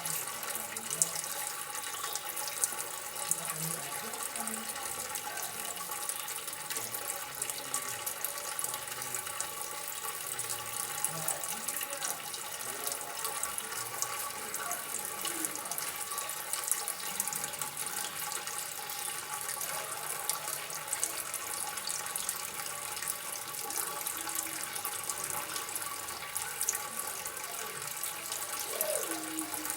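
Water trickling and splashing steadily, with a constant fine crackle of small drops.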